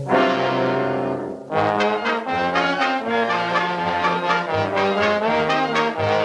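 Brass-led orchestral cartoon score: a held brass chord for about a second and a half, then a jaunty, rhythmic passage of short brass and orchestra notes.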